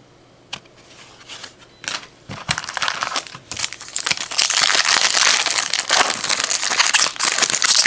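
Donruss football card pack's wrapper being torn open and crinkled by hand: a few clicks at first, then dense crinkling from about two and a half seconds in, getting louder in the second half.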